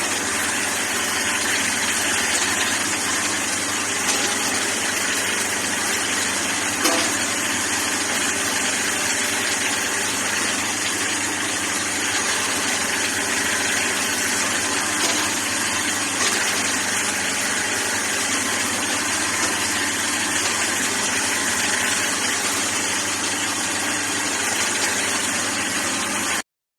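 Small Chinese excavator's engine running steadily at idle, with a single click about seven seconds in; the sound cuts off suddenly near the end.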